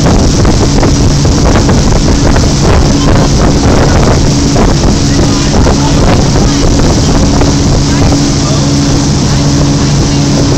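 Motorboat engine running steadily under way, a constant low drone mixed with the rush of the churning wake and wind buffeting the phone's microphone.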